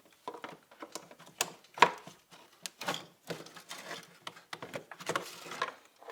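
Irregular clicks, knocks and clatter of hand tools and metal parts during valve cover removal on a 6.0 L Power Stroke diesel, with a rustling, scraping stretch about five seconds in.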